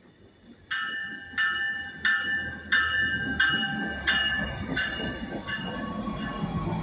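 Stadler GTW diesel light rail train's warning bell ringing, eight evenly spaced strikes at about one and a half a second starting about a second in, over the rising low rumble of the railcar pulling into the platform.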